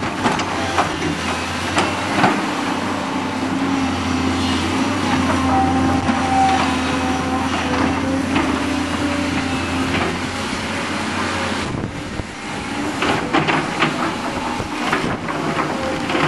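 Blustery wind buffeting the microphone with a constant crackle, over the steady drone of tracked excavators' diesel engines at work. The engine hum drops away about twelve seconds in, leaving mostly the wind crackle.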